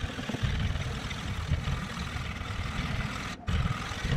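400-grit sandpaper on a home-made guided sharpener rubbing along a rusted knife blade at about 20 degrees, a steady rasping scrape as the rust is ground off, with a brief break a little after three seconds in.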